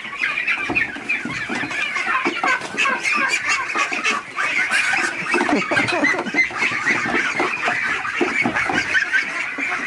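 A flock of ducks and chickens calling all at once as they crowd out of a coop door, a dense, continuous clamour of many short overlapping calls.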